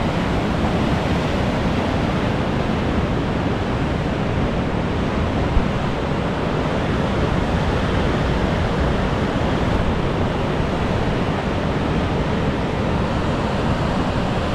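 Ocean surf breaking on a rocky shore below sea cliffs: a steady, unbroken wash of noise from the waves and white water.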